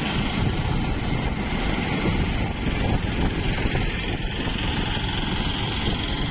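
Steady wind rumble on the microphone over the running noise of a moving vehicle.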